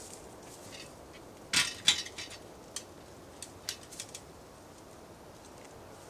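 A deer buck biting and crunching at a small pumpkin on the ground: a quick cluster of sharp cracks and clicks about a second and a half in, then a few scattered single clicks.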